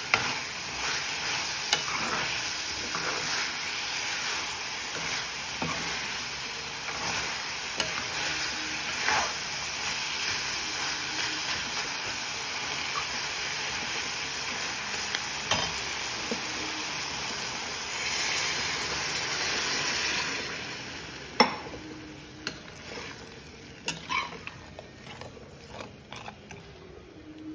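Cluster beans, onion and tomato sizzling in a metal kadai while a metal ladle stirs and scrapes the pan. About twenty seconds in the sizzling drops away as water goes into the pan, leaving a few sharp knocks of the ladle against the kadai.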